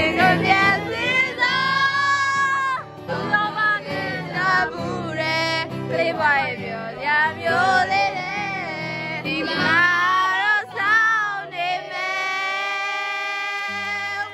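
A high voice singing a melodic song over steady instrumental backing, with wavering held notes and one long held note near the end.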